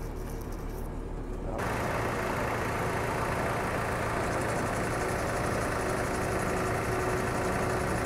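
Volumetric concrete mixer truck's engine running steadily with the PTO engaged, muffled at first as heard from inside the cab. About a second and a half in it turns suddenly louder and fuller as it is heard out beside the truck, together with the mixer machinery.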